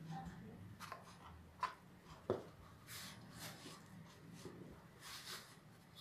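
A few light clicks of a spoon against a steel bowl, then soft rustling and rubbing of hands mixing dry flour and powder in the bowl.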